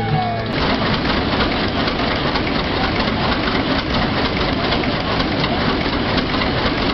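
Large vintage multi-cylinder engine running, its exposed valve gear and lifters making a loud, fast, dense clatter that sets in about half a second in.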